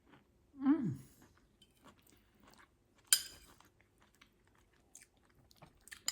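A person chewing a mouthful of stir-fried zucchini and mince, with soft mouth clicks throughout. About half a second in there is a short falling "mm" of approval, and about three seconds in a brief sharper noisy sound.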